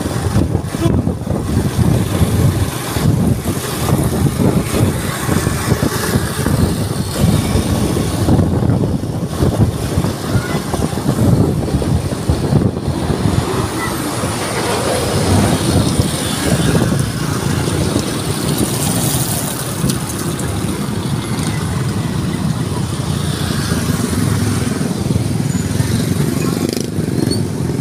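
Riding a small motorcycle through street traffic: engine and road noise under heavy, gusting wind buffeting on the microphone.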